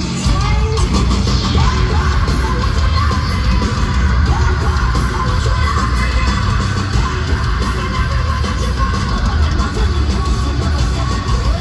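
A heavy metal band playing loudly live, with a heavy bass low end, guitars and vocals, picked up from the arena crowd on a phone microphone.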